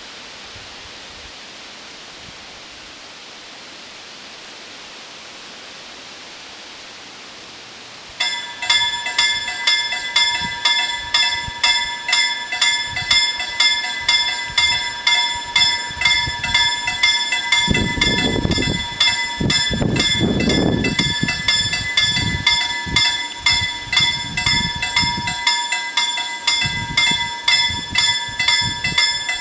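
Level crossing warning bells start ringing about eight seconds in, giving rapid, evenly repeated metallic strokes with a steady ring, after a steady hiss of wind. Partway through, a low rumble sounds for a few seconds under the bells.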